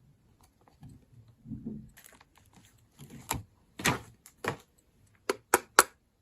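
A series of sharp clicks and taps, sparse at first, with three quick ones close together near the end and faint rustling between.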